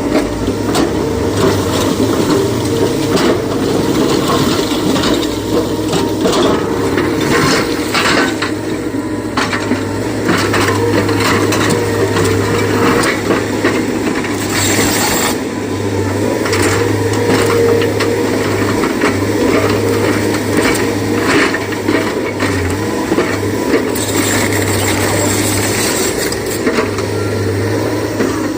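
SANY excavator's diesel engine running steadily while rock and stone clatter and scrape in its bucket and into a tipper truck's steel body during loading, many sharp knocks coming irregularly throughout.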